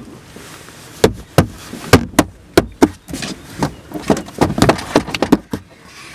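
A quick, irregular run of about fifteen sharp knocks and taps from hands striking the car's dashboard and steering wheel. It starts about a second in and stops shortly before the end.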